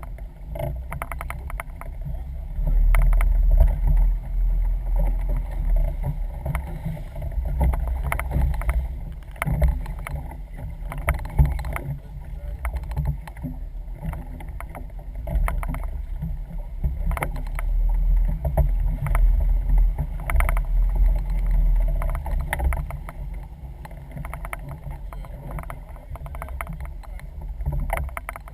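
Small boat on the water: a low rumble that swells and fades, with scattered knocks.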